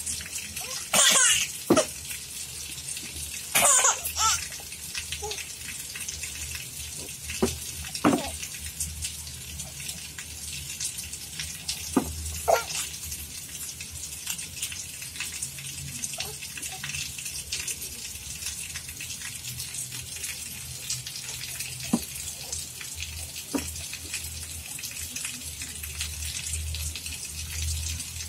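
A baby laughing in two short loud bursts, about a second in and again near four seconds, then only a few faint small sounds over a steady hiss.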